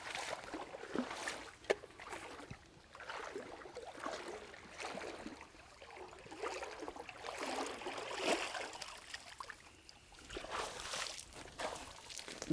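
Faint, irregular sloshing and trickling of water, with a few light knocks and rustles scattered through it.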